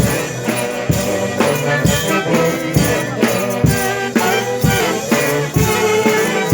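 Band music with several instruments playing together over a steady strong beat, about one beat a second.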